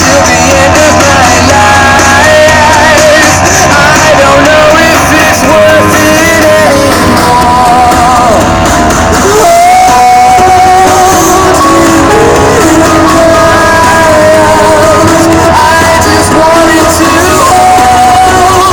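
Loud music with a singing voice over instrumental backing, continuous throughout.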